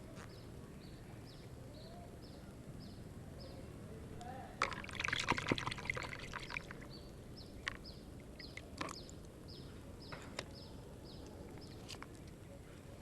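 Water splashing and trickling for about two seconds midway, with scattered clicks after it. A short high chirp repeats about three times a second in the background.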